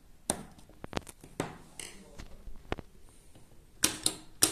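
Sharp plastic clicks of a CHINT impulse relay's small auto/manual selector being pushed with a screwdriver. Near the end comes a quick run of louder clicks as a push-button switch is pressed and the impulse relay latches over to switch the lamp.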